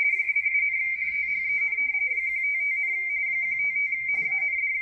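Amateur radio-teletype (RTTY) signal from the W1AW ARRL bulletin received on 80 meters by a Yaesu FTdx10 transceiver: Baudot RTTY with 170 Hz shift, heard as a steady, high, rapidly chattering two-tone keying sound that keeps an even level throughout.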